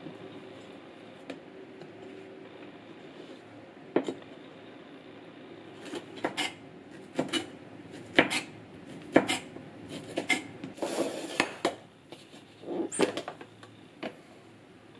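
Chef's knife chopping bacon strips on a wooden cutting board: a couple of single knocks, then a run of irregular knife strikes on the board through the middle.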